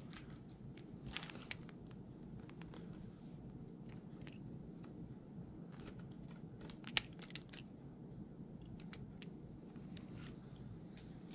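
Quiet handling noises: scattered light clicks and ticks as a hard-bodied glide-bait fishing lure with treble hooks is turned over in the hands, with one sharper click about seven seconds in, over a low steady room hum.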